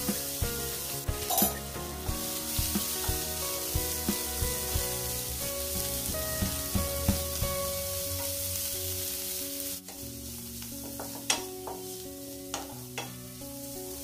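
Shredded cabbage sizzling as it fries in a nonstick pan, stirred and scraped with a wooden spatula, with a few sharp scrapes near the end. The sizzle eases a little about ten seconds in. Background music plays throughout.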